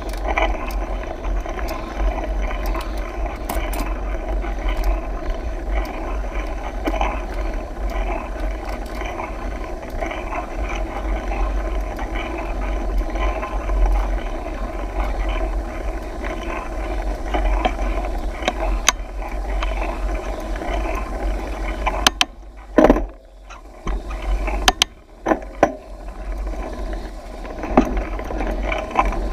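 Mountain bike riding on asphalt, heard from a bike-mounted camera: steady tyre and drivetrain whirr with wind rumble on the microphone. About three quarters of the way through the noise drops away briefly, broken by a few sharp knocks.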